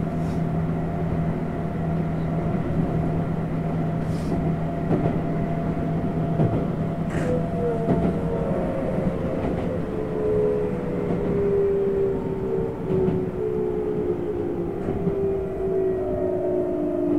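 Tokyu 7700 series electric train running, heard from the front by the crew cab, with wind noise from the cab. About halfway through, the traction motor whine starts falling steadily in pitch as the train slows toward the next station.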